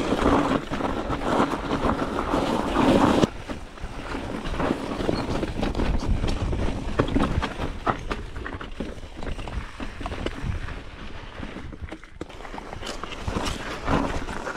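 Wind buffeting the microphone as a mountain bike rides downhill over rough ground, with many short knocks and rattles from the bike over rocks. The wind noise is loudest for about the first three seconds, then drops off suddenly.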